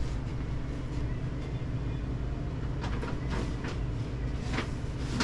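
Steady low background hum, with a few short crinkles of a plastic bread bag being handled between about three and four and a half seconds in.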